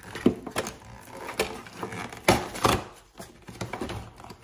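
Toy packaging being handled and pushed aside on a desk: irregular knocks, clicks and rustles of cardboard and plastic, with a few sharper knocks a little past halfway.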